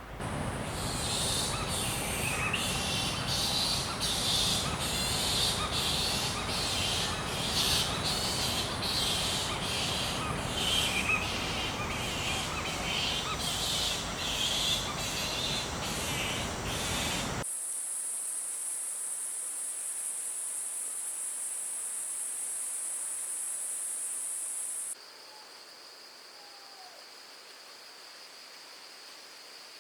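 Insect calls in three abruptly cut segments: a loud, dense pulsing chorus, then a steady high-pitched drone, then near the end a quieter, lower steady trill.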